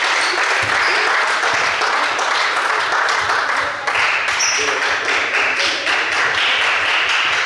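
Applause: many hands clapping at once, steady and loud, with a brief lull about four seconds in.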